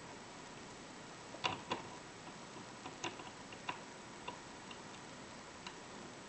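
Small, irregular metal clicks and ticks of a hook pick and tension wrench working the pin stack inside a 5-pin euro cylinder lock. The two loudest clicks come about a quarter second apart, a second and a half in, and lighter scattered ticks follow.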